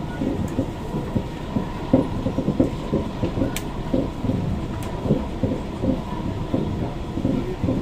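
Bogie of a Kawasaki–CRRC Sifang C151A metro car running at speed, heard inside the car: irregular clattering and knocking with a few sharp clicks, over a faint steady tone. The clatter is the odd bogie noise that makes the car sound as if it is breaking up.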